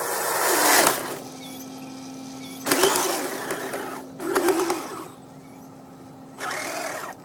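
Kyosho Blizzard SR radio-controlled tracked snow vehicle, its brushless electric motor and track drive running in short surges of throttle: one building up and ending about a second in, two more a little later, and another starting near the end.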